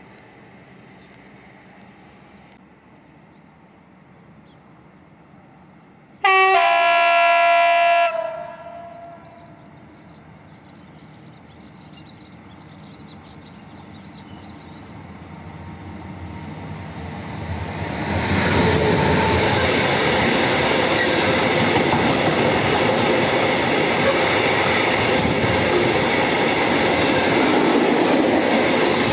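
The horn of the approaching E6ACT electric freight locomotive sounds once, a chord of several tones lasting under two seconds and dipping slightly in pitch as it cuts off. After that the freight train comes closer. From about two-thirds of the way in, the locomotives and a long string of open coal wagons pass close by, their wheels rumbling and clattering over the rails.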